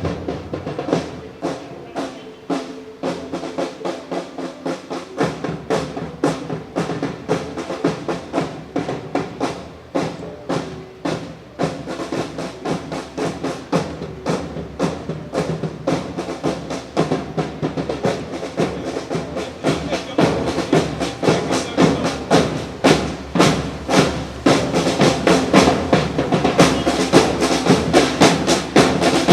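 Percussion-led music: drums struck in a quick, steady beat over pitched instruments, with a deeper low layer coming in about five seconds in and the whole growing louder toward the end.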